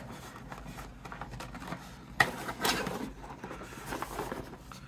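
Cardboard Nokia 6120 phone box being handled and closed over its paper manuals: light rustling and scraping of cardboard and paper, with a sharp tap about two seconds in.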